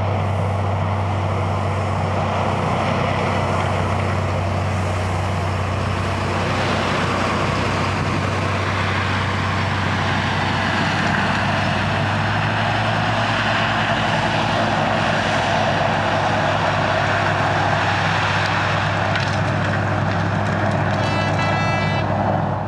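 Diesel engines of road-construction vehicles, a Unimog and the milling train's trucks, running and driving past with a steady deep hum underneath. A brief high tone sounds near the end.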